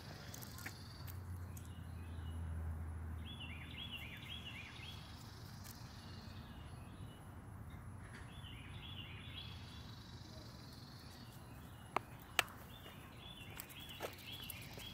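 A songbird repeating a short phrase of about four quick high notes every four to five seconds, over a low outdoor rumble. A few sharp clicks come near the end.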